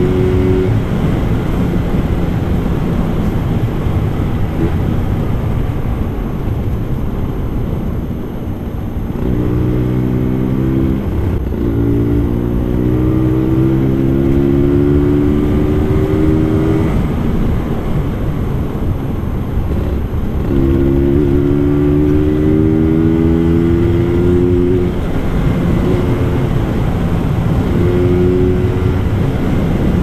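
Vintage Vespa scooter's two-stroke single-cylinder engine running under way, with wind noise on the microphone. The engine note climbs twice as the scooter accelerates, once about a third of the way in, briefly dropping back before climbing again, and once more past two-thirds of the way through.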